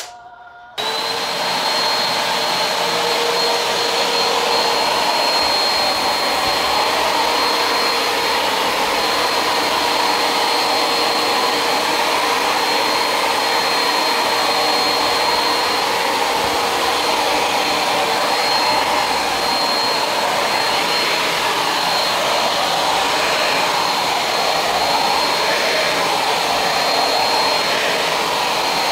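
Vacuum cleaner running steadily with a high whine, its floor nozzle drawn over a tiled floor picking up dry dust and debris. It comes on abruptly about a second in.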